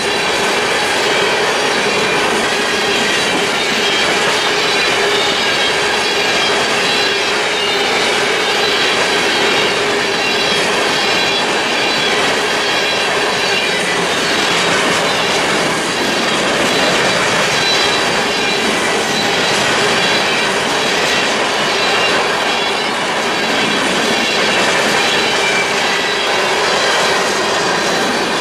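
Long string of freight hopper cars rolling past: a steady rumble and clatter of steel wheels on rail, with a sustained high wheel squeal running through it.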